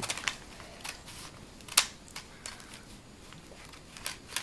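A foil LEGO minifigure packet being opened and its plastic parts handled: scattered clicks and crinkles, the sharpest click a little under two seconds in.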